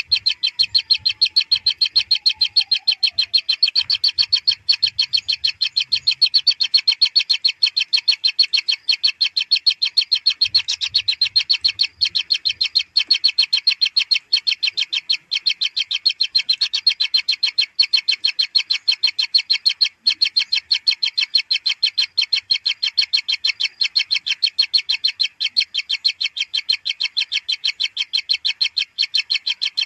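Kingfisher nestlings begging: a rapid, unbroken chatter of high calls, about six a second, holding steady throughout.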